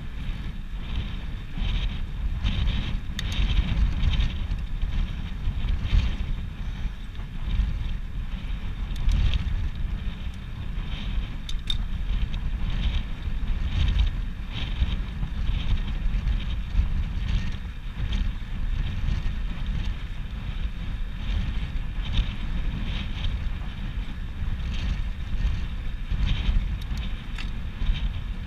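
Wind buffeting the microphone of a bicycle-mounted camera while riding: a steady low rumble that swells and eases in gusts.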